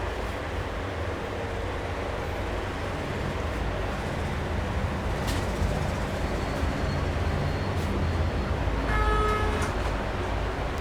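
Steady rumble of traffic with a vehicle horn sounding briefly near the end.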